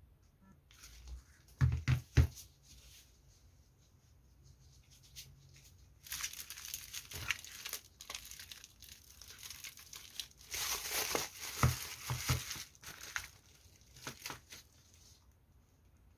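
Parcel packaging being crinkled and torn open by hand, in two long crackly stretches with scattered clicks. A few sharp knocks come about two seconds in.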